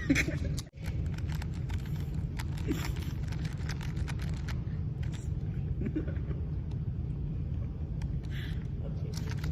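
A steady low rumble with light, irregular clicks scattered through it. The sound drops out briefly just under a second in.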